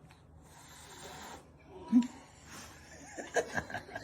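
A person laughing in short chuckles from about three seconds in, after a single short, low sound about two seconds in.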